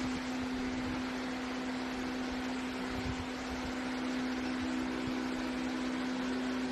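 Steady machine hum with one strong constant low tone over an even hiss, from a powered-up CNC screen printing machine.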